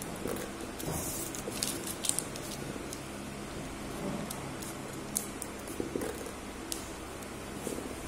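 Sheet of paper being folded and creased by hand on a wooden table: soft rustles and a scatter of small sharp crackles, busiest in the first couple of seconds, over a steady low hum.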